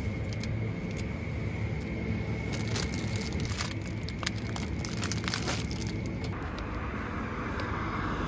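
Plastic packaging crinkling and crackling in short bursts as it is handled, over a steady low background hum.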